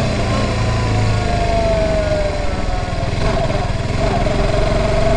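Motorcycle engine running under way, its note easing down a little in the first couple of seconds, then holding steady.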